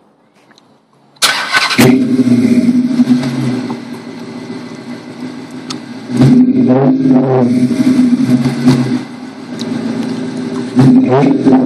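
Dodge Charger R/T's 5.7-litre Hemi V8 through a Flowmaster cat-back exhaust, starting with a loud burst about a second in, then idling. It is revved about six seconds in and again near the end, the exhaust note rising and falling with each blip.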